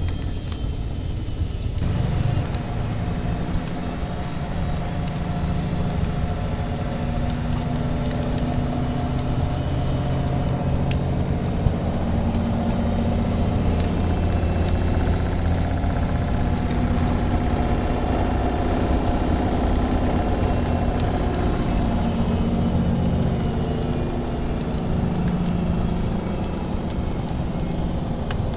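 Washing machine running with a steady low motor hum and drum rumble that fills out about two seconds in, with a few faint crackles from a wood fire.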